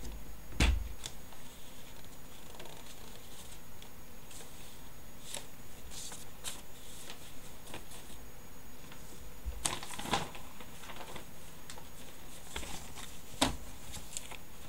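Sheets of paper rustling and being shuffled in the hands, with scattered clicks and a few sharper knocks, the loudest less than a second in.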